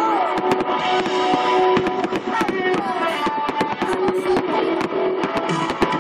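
Music with guitar, laid over a rapid scatter of sharp cracks and pops from fireworks going off.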